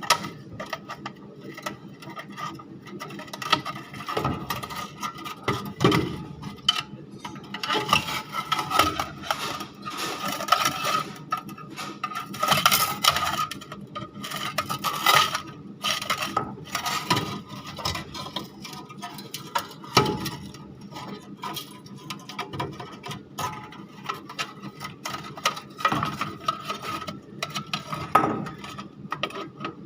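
Irregular metallic clicks, clinks and knocks of parts and tools being handled while a shawarma machine's gas burner is worked on, with a few sharper knocks standing out.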